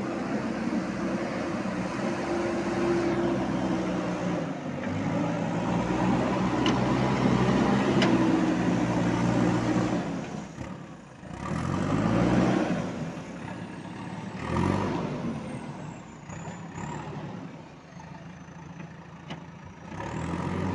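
JCB 3DX backhoe loader's diesel engine working, its revs rising and falling with the load: held high for about the first ten seconds, dropping sharply about halfway, surging up twice, then running lower before rising again at the end.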